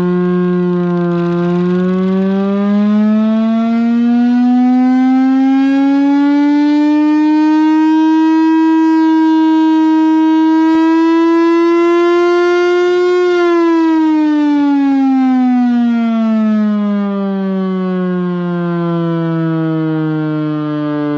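Chrysler air raid siren, driven by its Hemi V8 engine, sounding one loud steady wail. Its pitch climbs smoothly for several seconds, holds at the top, then winds down steadily through the second half.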